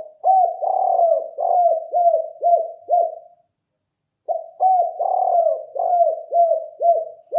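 A spotted dove cooing. It gives two phrases of about seven short coos each, each coo dropping in pitch at its end, and the second phrase starts about four seconds in.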